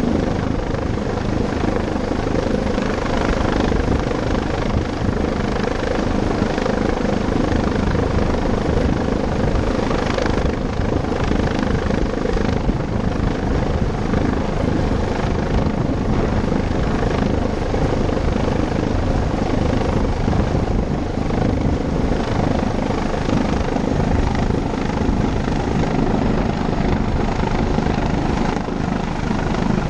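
Rescue helicopter hovering low overhead, its rotor and turbine noise loud and steady.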